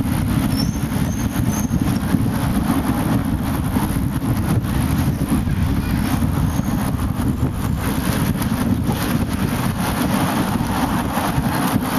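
Wind buffeting the microphone of a camera carried on a moving bicycle: a steady, heavy low rumble, with street traffic noise underneath.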